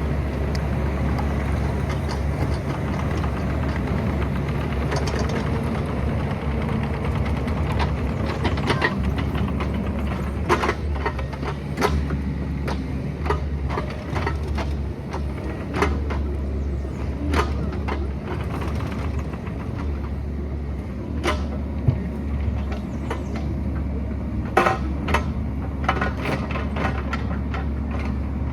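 Excavator's diesel engine running steadily, with irregular sharp knocks and clanks starting about eight seconds in, as of the bucket working against rock.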